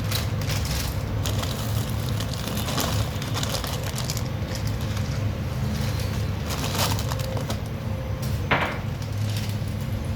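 Scattered knocks and clinks of kitchen work, with the sharpest knock about eight and a half seconds in, over a steady low hum.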